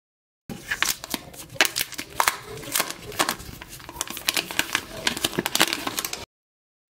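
Thin plastic protective film crackling and crinkling in quick, irregular crackles as it is peeled off the back of a new smartphone. The sound starts abruptly about half a second in and cuts off suddenly near the end.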